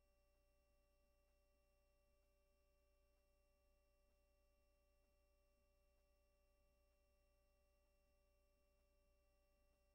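Near silence: only a faint steady low hum with a few thin steady tones, no sound from the game.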